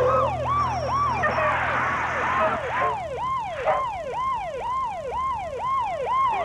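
Cartoon siren sound effect, the dog pound truck's siren, wailing in quick rising-and-falling sweeps about twice a second. A low steady drone under it fades out about halfway.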